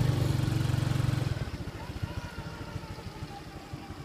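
Motorcycle engine running at a steady speed, then eased off about a second and a half in, dropping to a quieter, slow putter as the bike rolls on.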